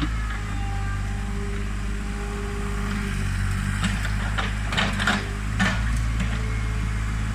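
Komatsu PC40 excavator's diesel engine running steadily, with a few short clatters around the middle as the bucket works the soil.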